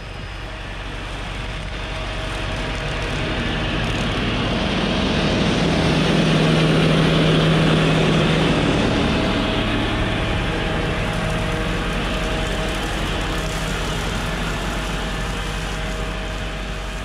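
New Holland TS100 diesel tractor with a rotary brush cutter driving past. Its engine runs steadily, growing louder as it approaches, loudest about six to eight seconds in, then fading as it moves away.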